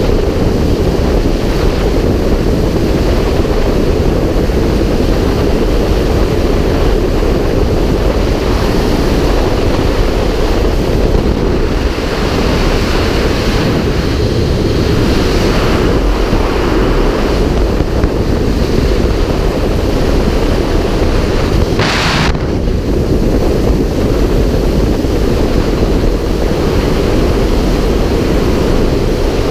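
Freefall wind rushing over a GoPro camera's microphone: a loud, steady rumble, with one brief sharper hiss about three-quarters of the way through.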